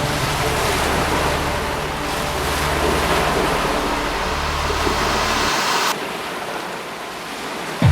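Heavy surf from a typhoon-whipped sea: a steady rushing of waves breaking, with wind. The sound thins and quietens about six seconds in.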